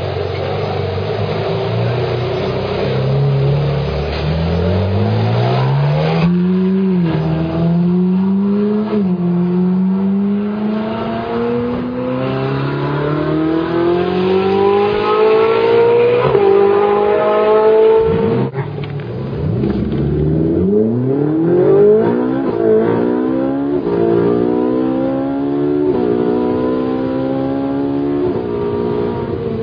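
Ferrari 458 Italia's V8 engine revving up through the gears, the pitch climbing steadily in each gear and dropping back at each shift. In the first half the climbs are long; later they are short and come every second or two.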